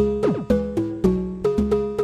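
Intro music: short struck notes in a quick, even rhythm, with a brief falling swoop about a quarter of a second in.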